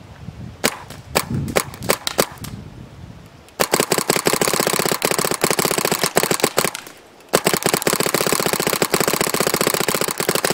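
Valken G6R paintball marker firing: a few scattered shots, then two long rapid strings of shots starting about three and a half seconds in, with a short break around seven seconds.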